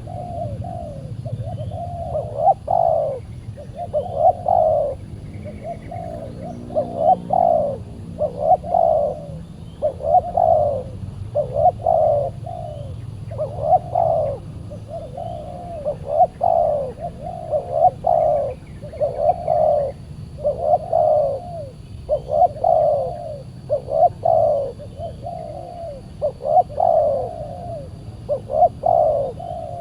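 Spotted dove cooing over and over, one low coo phrase about every second and a half to two seconds.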